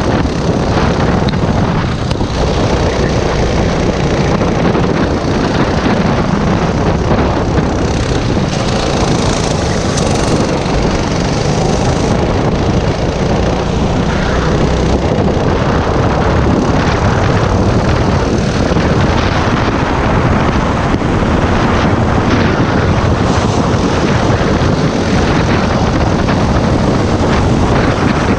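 Racing kart's small single-cylinder engine running hard under racing load, heard from the kart itself, with other karts close by.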